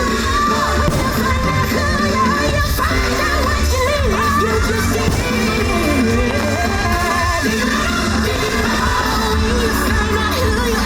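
Fireworks-show soundtrack music with a singer's voice gliding over steady bass, played loud.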